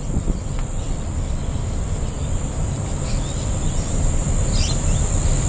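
Outdoor ambience: a steady, high-pitched insect drone runs throughout over a loud, low rumbling noise. A few brief bird chirps come about three and four and a half seconds in.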